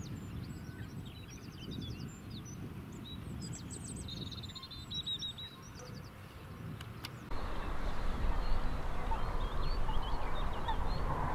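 Small songbirds singing in quick high trills and runs of repeated notes. About seven seconds in, the sound cuts to a louder, steady low rumble with fainter bird calls over it.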